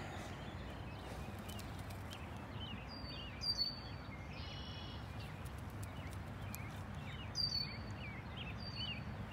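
Small birds chirping in short, repeated calls over a steady low rumble of wind.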